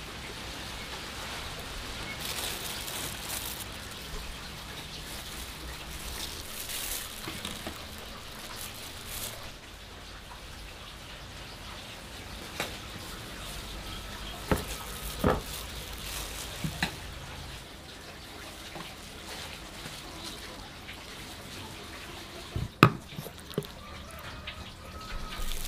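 Quiet kitchen food-handling sounds: soft rustling with scattered light clicks and knocks. The loudest is a pair of sharp knocks a few seconds before the end, as a metal spoon scrapes and taps meat filling in a plastic bowl.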